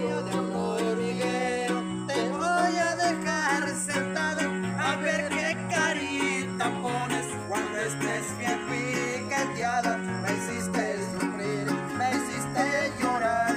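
Huasteco trio playing an instrumental passage: a violin melody with wavering pitch over rapidly strummed jarana and huapanguera, with a moving bass line underneath.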